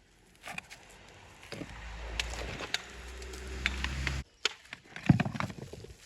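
Stones knocking and scraping as they are handled, over a low rumble that cuts off suddenly about four seconds in; one sharp loud knock about five seconds in.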